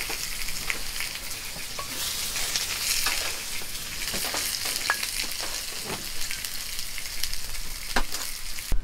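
Slices of beef sizzling on a grill over a wood fire: a steady frying hiss with scattered sharp pops. It stops abruptly near the end.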